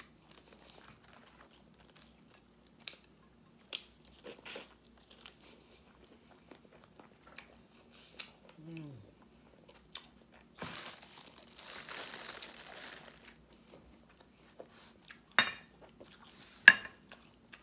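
Close-up eating sounds: a person chewing and crunching on crunchy food, with a longer stretch of crunching about eleven seconds in and two sharp, loud crunches or clicks near the end.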